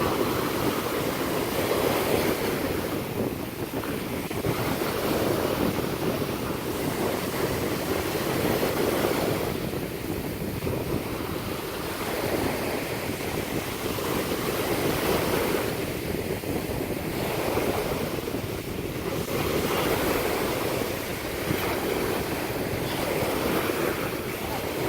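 Surf washing in steadily with wind rumbling on the microphone, the noise swelling and easing every few seconds.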